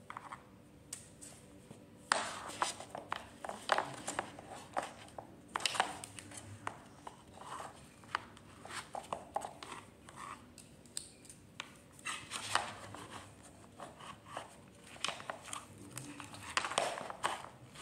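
Plastic Barbie dolls being handled and moved around on a wooden floor: irregular soft clicks, taps and rustles as the dolls knock against the floor and each other.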